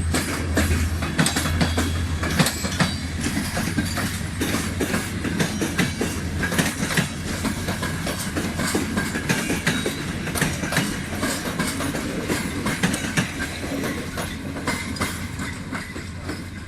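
Passenger train's coaches rolling past, wheels clicking rapidly and continuously over rail joints, growing fainter near the end.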